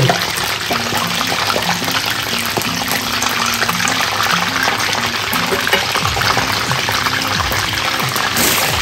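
Hot oil sizzling and bubbling steadily around batter-coated green chillies deep-frying for bajji. A faint melody of background music plays under it.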